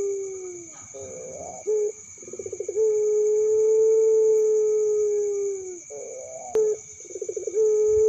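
A puter pelung, a long-cooing Barbary dove, cooing: a rough opening note and a quick stuttering run lead into one long, drawn-out coo that drops in pitch at its end, and the phrase starts over near the end. Crickets trill steadily behind it.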